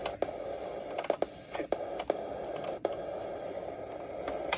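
NOAA weather radio receiver hissing with static through its small speaker, broken by about a dozen irregular sharp clicks and crackles, typical of weak reception.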